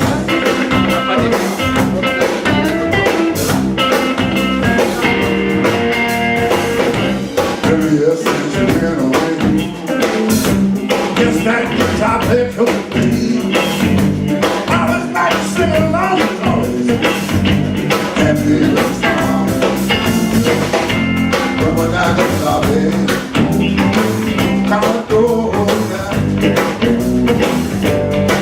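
Band playing blues-rock music, with guitar prominent.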